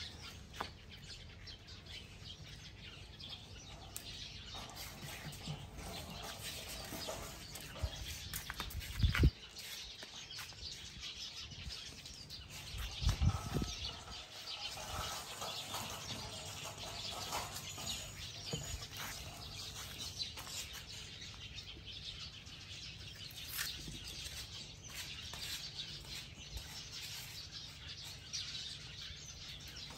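Birds chirping steadily in the background, with two dull low thumps about nine and thirteen seconds in.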